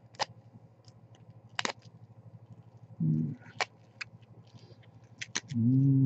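Sharp, separate clicks and snaps of 3D-printed plastic support material being picked and broken out of a printed part with a thin metal pick, about five in all. A man's short closed-mouth hum sounds twice, about three seconds in and again near the end, louder than the clicks.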